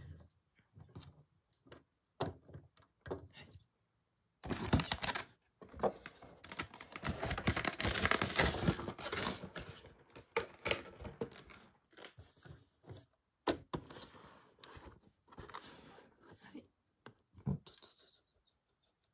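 Hands handling a die-cast model truck: scattered clicks and taps, with a stretch of steady rustling from about four to eleven seconds in.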